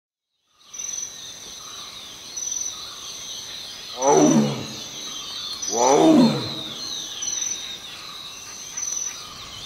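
Forest ambience soundscape: birds chirping, with a high note repeating about every second and a half. Two loud animal calls fall steeply in pitch, about four and six seconds in.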